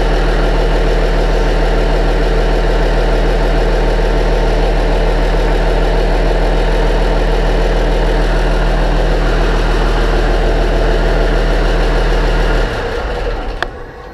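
Freshly rebuilt six-cylinder turbo diesel of an MTZ 2022.3 tractor, a D-260.4S2, running steadily at a constant speed after its injection timing has been set. The engine is shut off about 13 seconds in and runs down over about a second, with a click near the end.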